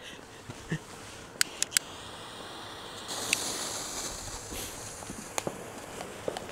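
Lit firework fuse hissing and spitting sparks. The hiss starts abruptly about three seconds in and then tapers off. Just before it come three sharp cracks in quick succession.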